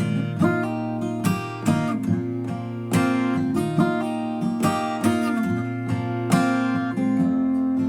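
Background music: a strummed acoustic guitar playing sustained chords, struck again every half second to a second.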